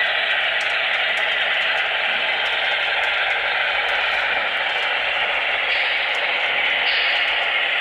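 Onboard sound from HO-scale Broadway Limited Pennsylvania Railroad Centipede diesel models: a steady, tinny engine drone from their small speakers.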